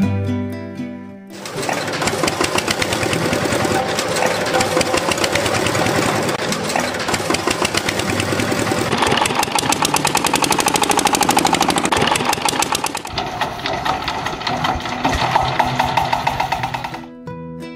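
Brief guitar music, then a loud, rapid rattling buzz of a small motor that shifts up in pitch around the middle and stops near the end, where the guitar music returns.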